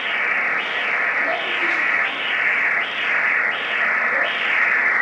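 Pulsed-wave Doppler ultrasound audio of blood flow: a hissing whoosh that surges and fades with each pulse, about once every three-quarters of a second.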